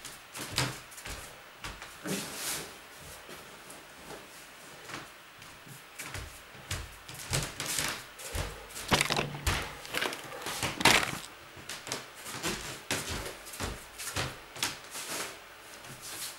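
Irregular knocks, bumps and rustling as household things are handled and set down, with two louder knocks about nine and eleven seconds in.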